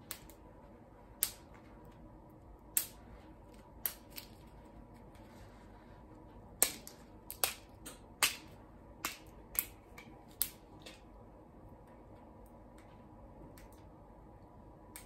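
Sharp plastic clicks and snaps, about a dozen at irregular spacing and stopping about eleven seconds in: the cap of a small plastic candy container being twisted and pried open.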